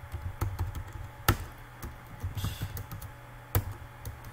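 Typing on a computer keyboard: irregular key clicks, with two sharper, louder keystrokes, one about a second in and one near the end.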